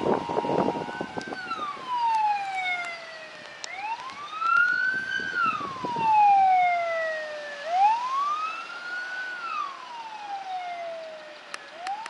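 Ambulance siren wailing in a slow rise and fall, one cycle about every four seconds. Before it, a second of road traffic noise cuts off.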